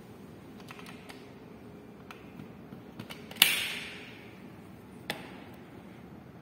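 Plastic clicks at a mains power strip as a plug is handled and pushed into its socket: a few light ticks, then one sharp, loud click about three and a half seconds in that rings briefly, and a smaller click about five seconds in.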